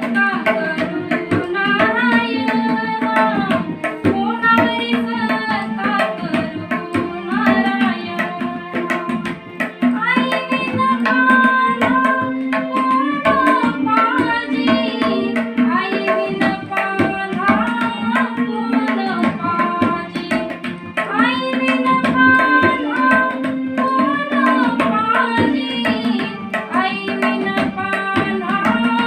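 Tabla playing a steady rhythm under a sung melody, accompanied by an organ that holds a low sustained drone and follows the tune.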